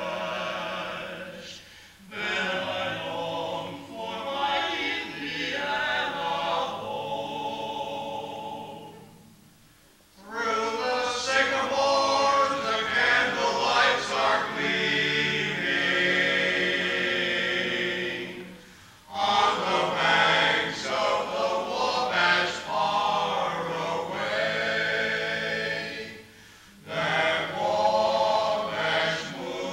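Male barbershop singers in unaccompanied close harmony, singing in phrases that break off briefly four times.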